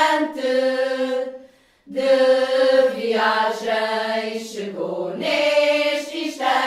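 Women's choir singing cante alentejano unaccompanied, in long drawn-out held notes. The voices break off briefly about a second and a half in, then come back together on a new sustained phrase.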